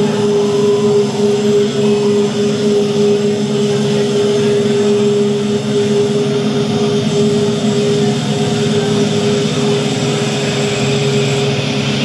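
Electronic music on a club sound system: a sustained drone held on one steady pitch over lower held tones and a dense, rushing wash, with no clear beat. The lower tones grow stronger near the end.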